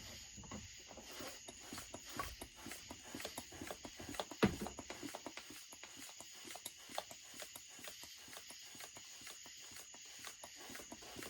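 Light, irregular clicking and tapping from chainsaw parts and small tools being handled, with one sharper click about four and a half seconds in.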